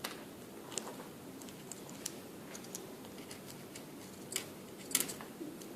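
Faint, scattered clicks and taps of small plastic smartphone parts being handled and pried, with a few sharper clicks about a second in, two seconds in, and twice near the end.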